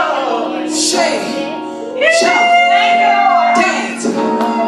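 A woman singing worship into a microphone, with long held notes, over sustained instrumental chords. The loudest held note comes about two seconds in and lasts over a second, after a brief quieter stretch.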